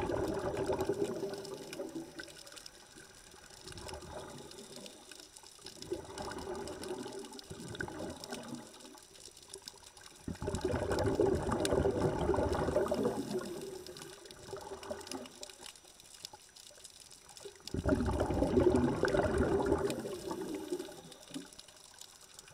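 Heard underwater: a scuba diver's exhaled bubbles gurgling out of the regulator in bursts every few seconds, with quieter gaps between breaths. The longest, loudest bursts come about ten and eighteen seconds in.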